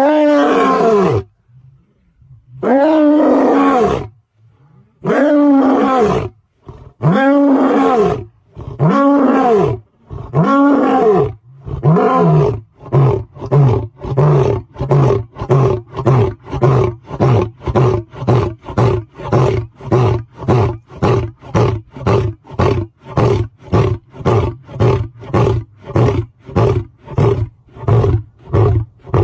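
Lion roaring: about six long, deep roars, each rising and falling in pitch, then a long run of short grunts at about two a second, the typical close of a lion's roaring bout.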